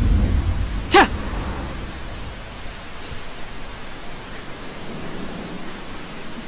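Steady hiss of falling rain, with a low rumble at the start and one short sharp sound about a second in.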